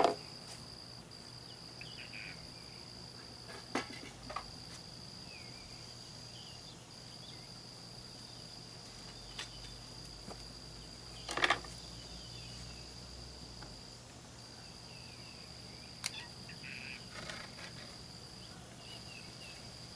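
Cricket trilling steadily at a high pitch, with a few short breaks. A few sharp knocks and taps sound over it, the loudest about eleven and a half seconds in.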